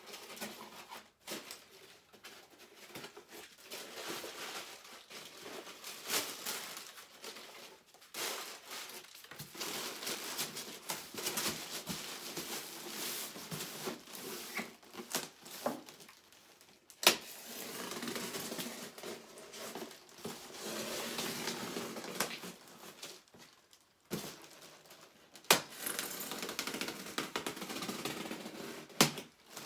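Statue packaging being handled and unwrapped: long stretches of rustling and crinkling, broken by pauses, with a few sharp knocks or clicks, two of them loud.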